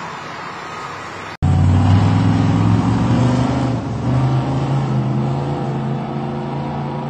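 Faint, steady city traffic, then an abrupt cut to loud car engines accelerating hard down a street. The engine note steps up and shifts in pitch a few seconds in.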